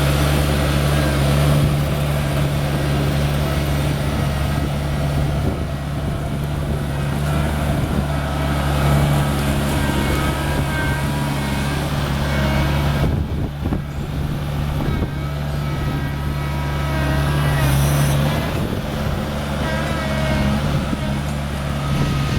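New Holland TC40 compact tractor's diesel engine running steadily, with a brief dip in level about two-thirds of the way through.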